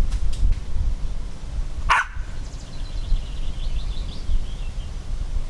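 Wind rumbling on the microphone, with a single sharp dog bark about two seconds in and a faint run of quick high chirps after it, like small birds twittering.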